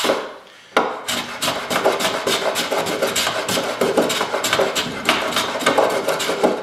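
Small hand plane with a freshly sharpened iron shaving the end grain of a maple board in quick short strokes, one rasping cut after another, starting just under a second in. The iron is cutting cleanly and the edge is holding up in the hard maple.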